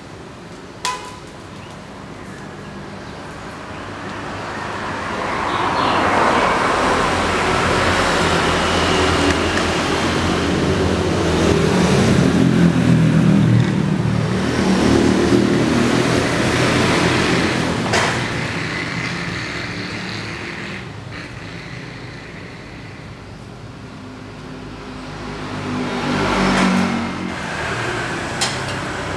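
Motor traffic passing close by: a vehicle engine swells up over a few seconds, stays loud for a long stretch and slowly fades, then a second vehicle passes briefly near the end. A single sharp click about a second in.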